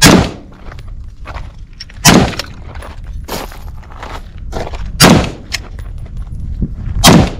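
AR-15 rifle fired in slow single shots: four shots about two to three seconds apart, each a sudden loud crack with a short tail.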